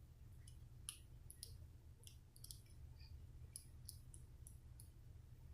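Faint, irregular clicks of a lock pick and tension wrench working the pins of a Brinks 40 mm padlock during single pin picking, heard over a low steady hum.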